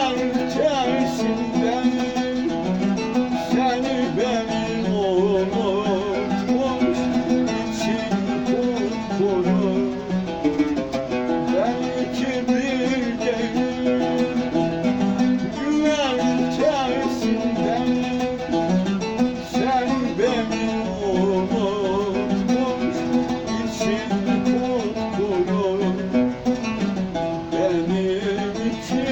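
Oud played with a plectrum, picking out a melody, with a man's voice singing a wavering line over it at times.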